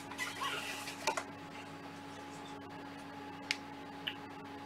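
Rustling and scraping of parts being handled on a workbench for about the first second, then a few sharp single clicks, over a faint steady hum.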